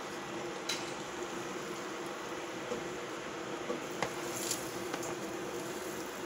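Steady kitchen background noise, a hiss with a low hum, broken by a few light clicks about a second in and twice around four seconds in.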